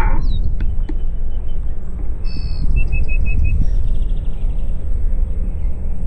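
Wild birds calling over a low, steady rumble of wind on the microphone. A short falling whistle comes near the start, then a call, then a quick run of about five short chirps around the middle.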